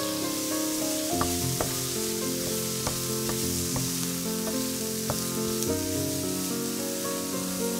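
Diced onion and carrot sizzling in oil in a nonstick frying pan, with sharp clicks of a wooden spatula against the pan as they are stirred, beginning about a second in.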